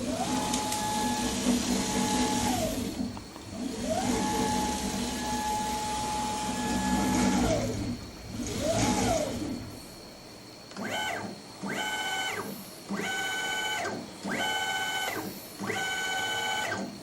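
NEMA 23 stepper motors of a homemade CNC router whining as the axes are jogged. Each move rises in pitch, holds, then falls as the motors ramp up and down. There are two long moves, a short one, then five short higher-pitched moves about a second apart.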